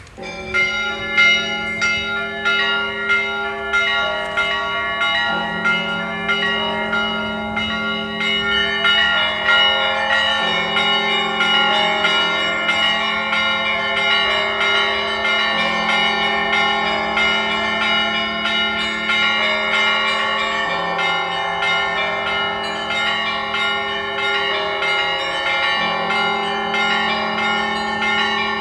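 Orthodox cathedral bells rung together in a full peal. Small bells are struck in a fast, continuous jangle over deeper ringing bells, and the lowest bell note alternates about every five seconds. The ringing starts suddenly just after the beginning.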